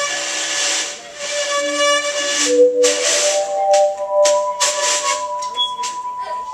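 Live improvised band: held melodic notes that move from pitch to pitch, over drum and cymbal strikes with a hissing wash.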